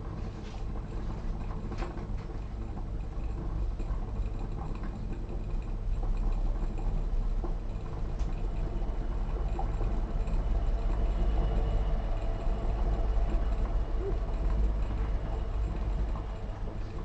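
Cona vacuum coffee maker boiling, its water bubbling up the funnel into the upper bowl: a steady low rumble with a bubbling hiss. It swells louder about six seconds in and eases off near the end.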